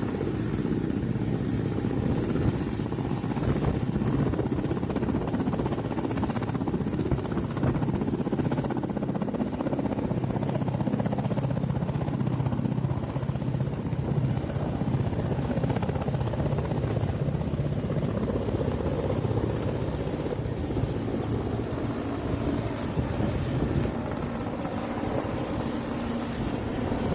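Mil Mi-17-type twin-turbine military helicopter lifting off and climbing away, its main rotor and engines giving a steady, heavy noise.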